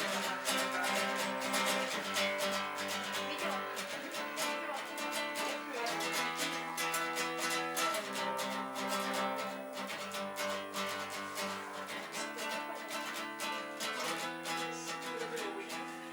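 Acoustic guitar strummed steadily in an instrumental passage between sung lines, the chords changing about every two seconds.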